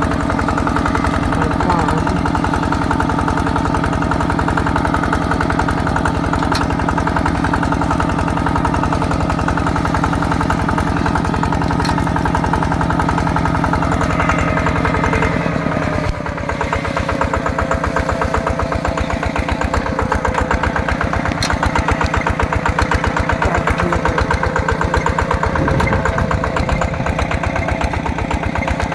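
Single-cylinder diesel engine of a small tractor running steadily with an even, fast pulse. About halfway through the sound dips briefly and the engine note drops a little, then stays steady.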